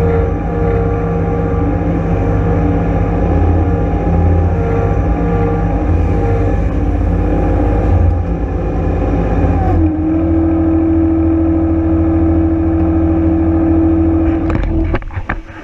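John Deere 1023E compact tractor's three-cylinder diesel engine running steadily. About ten seconds in, its note drops and settles into a steadier hum. Near the end the running sound falls away.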